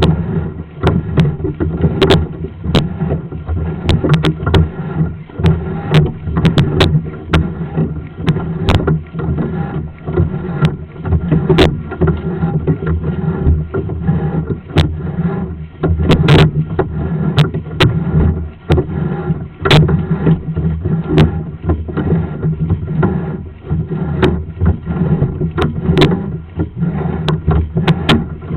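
Sewer inspection camera's push cable being pulled back out of the drain line and handled at the clean-out, with many irregular clicks and knocks over a steady low hum.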